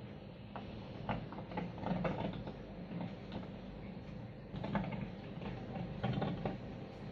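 A small plastic toy bicycle's knobbly wheels rolling back and forth across a tabletop: a continuous dry rattle of many small clicks. It grows louder for a while about two seconds in and again about five seconds in.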